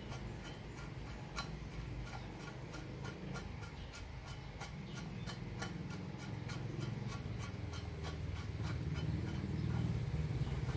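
Steady, even ticking, about four clicks a second, over a low hum.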